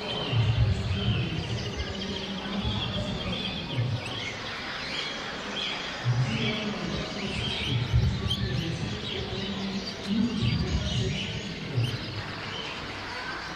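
Many caged canaries and other finches chirping and twittering at once, with a murmur of people's voices underneath.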